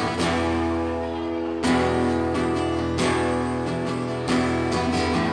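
Acoustic guitar strumming sustained chords, a fresh strum about every second and a half with the chord ringing on between.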